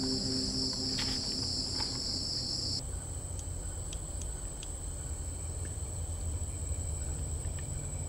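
Night insects calling in a steady, continuous high-pitched trill. About three seconds in, the lower of two trills cuts off abruptly while the higher one carries on over a low rumble.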